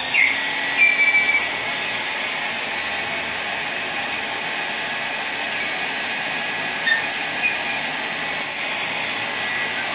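Handheld hair dryer switched on and blowing steadily, drying wet spray paint. It makes an even rush of air with a faint thin whistle.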